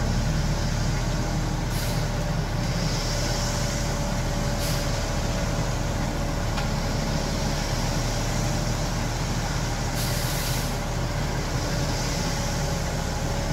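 Concrete mixer truck's diesel engine running steadily, with a few short hisses of air.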